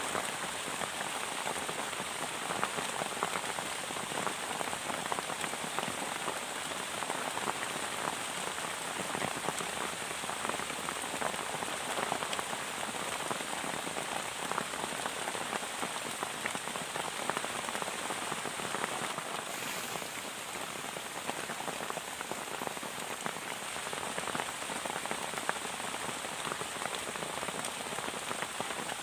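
Heavy rain falling steadily on a plastic tarp shelter, a dense, even patter of drops with no let-up.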